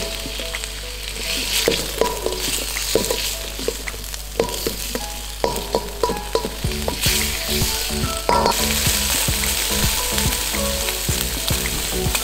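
Stir-fried chicken and vegetables sizzling in a stainless steel mixing bowl used as a wok, with a steady hiss from the sauce coming up to the boil. A spatula scrapes and clicks against the metal bowl at irregular moments as the food is stirred.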